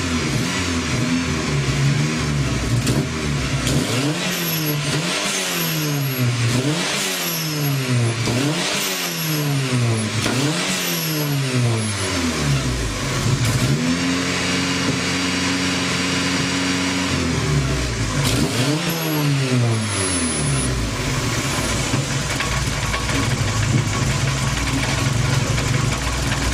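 Turbocharged Vauxhall 2-litre 8-valve engine in a classic Mini, running on one of its first start-ups: it idles, then is blipped repeatedly, held at a higher rev for a few seconds, blipped once more, and settles back to a steady idle. A faint high whistle from the T3 turbo rises with the revs.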